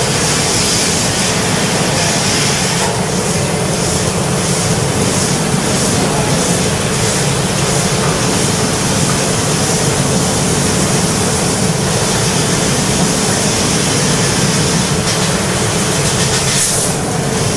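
CNC laser cutter cutting 1 mm sheet steel: a loud, steady hiss of the cutting jet with a faint constant tone underneath.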